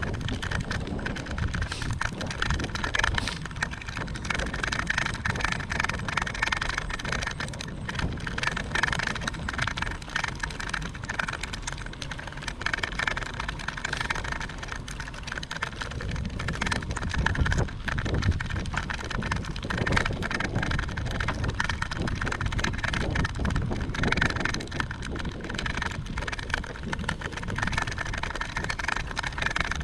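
Steady wind and road noise from riding along a road, with wind buffeting the microphone.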